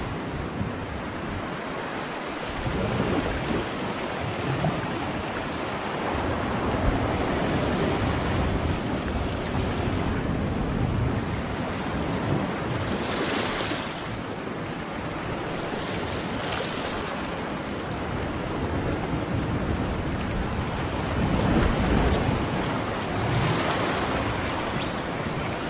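Sea waves washing and splashing against a rocky shoreline, swelling and easing, with wind buffeting the microphone.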